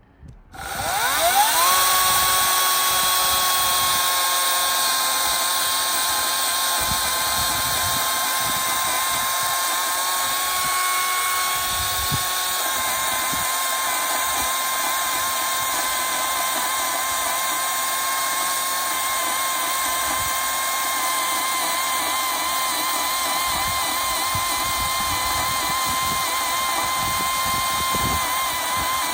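Ryobi chainsaw running with an Oregon 14-inch bar and S52 chain: the motor spins up about a second in with a quickly rising whine, then runs at a steady high whine, wavering slightly in pitch in the later part.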